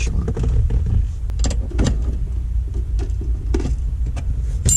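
Short-throw shifter in a 2000 Honda Prelude being worked through the gears, giving a run of quick clicks and clunks over a steady low rumble.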